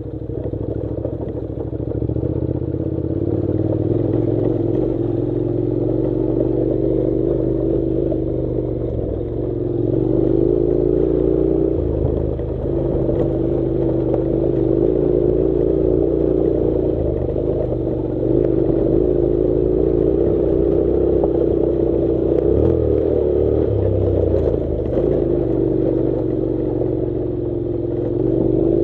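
Honda NC700 motorcycle's parallel-twin engine running on board, its note rising and falling with the throttle as the bike rides up a loose gravel track. The engine picks up a little about two seconds in and again near ten and eighteen seconds.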